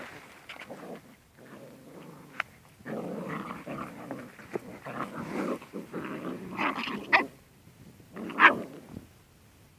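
Seven-week-old whippet puppies growling as they wrestle in play, starting about three seconds in, with two louder, sharper outbursts near the end.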